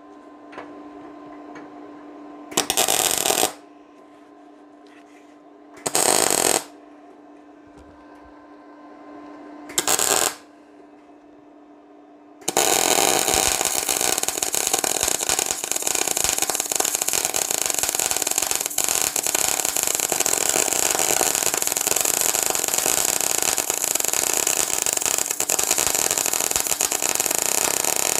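MAG welding arc of a MIG200 D3 inverter welder running 0.8 mm SG2 solid wire into thicker flat steel at 140 amps and 23 volts. Three short bursts of arc for tack welds, then a long continuous bead with a steady dense crackle. The welder judges that these settings could still be tuned a little better.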